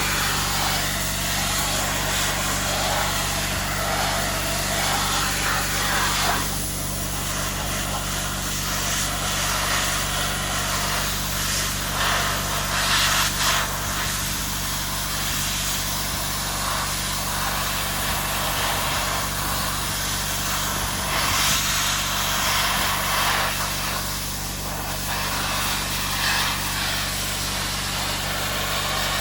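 Sandblaster nozzle blasting parts with compressed air and abrasive: a loud, steady hiss that swells and thins every few seconds as the nozzle is aimed, over a steady low hum.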